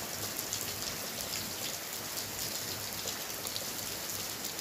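Steady rain falling: an even hiss with a dense scatter of fine drop ticks.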